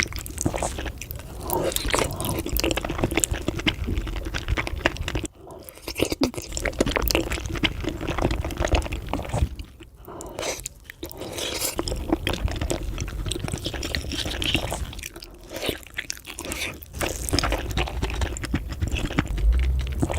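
Close-miked eating of spicy braised beef feet: wet chewing and biting with crunching and squishing, pausing briefly twice.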